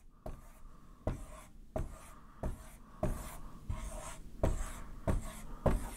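Marker drawing small circles on a whiteboard, a short stroke about every two-thirds of a second.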